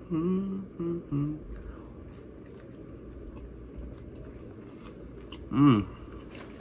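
A person chewing a bite of a McDouble cheeseburger with mouth-closed humming for about the first second and a half, then quiet chewing. Near the end comes one short, loud hum that rises and falls in pitch.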